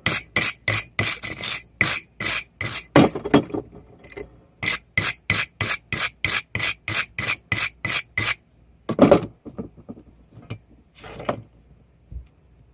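A blacksmith's wire brush scrubbing a hot railroad spike in quick, scratchy strokes, about three a second, to clear forge scale. The strokes pause briefly three to four seconds in and stop about eight seconds in, followed by a few scattered knocks.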